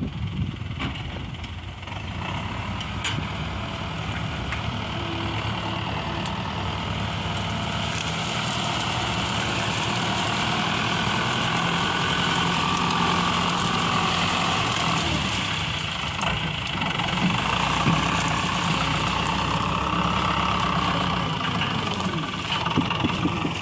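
A tractor's diesel engine running steadily, growing somewhat louder about a third of the way in.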